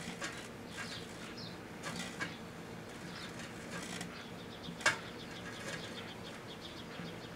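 A 5 1/4" floppy disk drive crackling and popping as it burns inside a running Proctor-Silex microwave oven, over the oven's steady hum. There is one sharp, loud pop about five seconds in.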